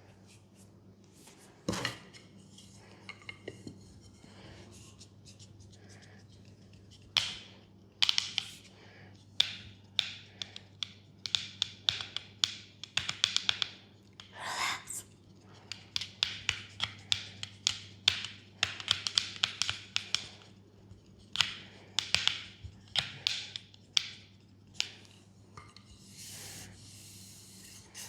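Hands tapping and slapping on the leg in fast runs of sharp, crisp strikes, a percussive massage, over a low steady hum.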